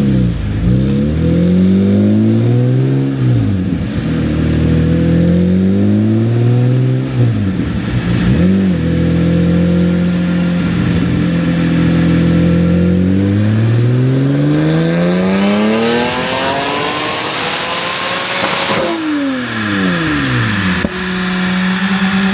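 Turbocharged Toyota 2GR 3.5-litre V6 in an MR2 accelerating hard through the gears: the revs climb and drop at each shift a few times, then hold steady for a few seconds. Then a long pull follows with a loud hissing rush building over the engine, cut off sharply a few seconds before the end. The engine settles to a steady drone.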